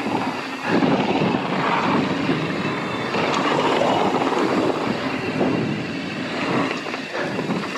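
Mountain bike riding on dirt singletrack: tyres rolling and the bike rattling over the trail, with wind buffeting the camera microphone.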